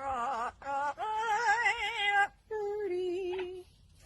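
A voice giving long, held, wavering notes, sung or howled, in three drawn-out phrases with short breaks between them. The pitch shakes steadily throughout each note.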